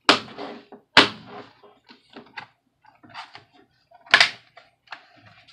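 Plastic snap clips of an HP Chromebook 14's case clicking into place as the two halves are pressed together by hand. There are sharp snaps at the start, about a second in and about four seconds in, with fainter clicks between.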